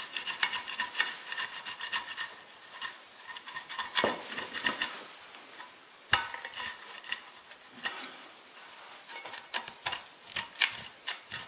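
Spatula scraping and prying at cornbread stuck to a cast iron skillet: irregular scrapes against the pan with sharp knocks, the loudest about four and six seconds in.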